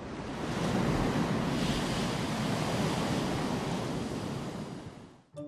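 Rough sea: waves breaking and surf rushing in a steady roar of white water, swelling up at the start and fading away near the end.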